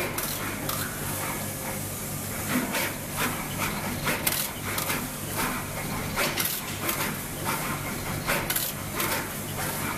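SMT pick-and-place machines running: a steady machine hum with frequent irregular sharp clicks and clacks from the placing head and component feeders.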